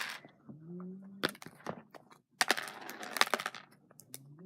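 Crackling and clicking of small plastic craft items being handled, with a denser rustling crackle about two and a half seconds in.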